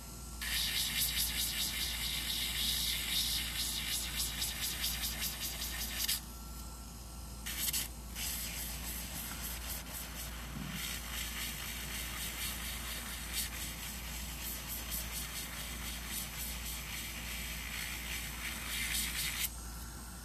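Electric nail drill with a flat-edged metal bit grinding the nail around the cuticle: a gritty, high-pitched buzz in two long passes, broken off for about a second and a half some six seconds in and stopping near the end. Between passes the drill's thin motor whine carries on.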